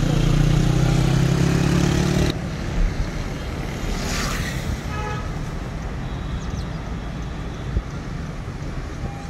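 Road traffic heard from a moving car: engines and tyre noise, with a nearby engine running loudly at first that cuts off abruptly about two seconds in. A short horn toot sounds about five seconds in.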